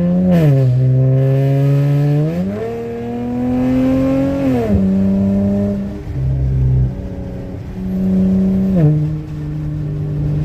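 Dodge Challenger's V6 engine, fitted with a new Spectre cold air intake, being revved: the revs rise and fall several times and hold steady in between.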